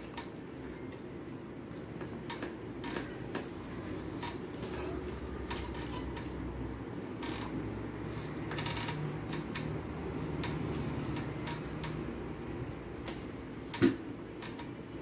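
Eating by hand from a steel plate: fingers mixing and scooping rice, with chewing and scattered small clicks and clinks over a steady low hum. A short louder knock near the end.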